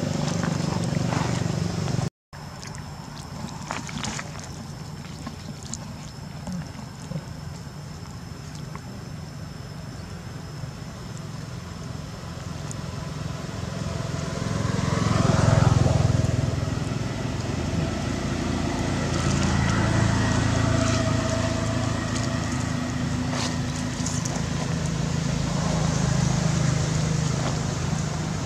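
Steady low rumble of motor-vehicle traffic, with one vehicle passing loudest about halfway through and a brief dropout about two seconds in.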